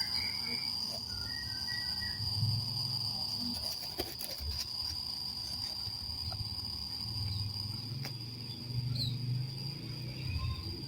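Steady high-pitched insect drone over a low, uneven rumble, with a few sharp clicks and brief faint chirps.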